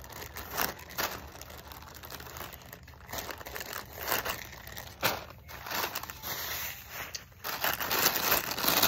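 Clear plastic packaging bags crinkling and rustling as hands rummage through them, in irregular crackles that get busier and louder near the end.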